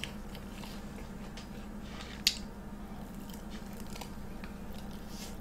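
Soft, faint chewing and biting of a fried mozzarella corn dog close to the microphone, with small wet mouth clicks and one sharper click about two seconds in, over a low steady hum.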